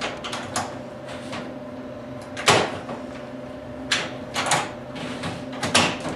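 Hand seaming tool clamped on a metal standing seam, clacking and clicking irregularly as it is squeezed and worked along, folding the seam's second leg down into a double lock. The loudest clack comes about two and a half seconds in.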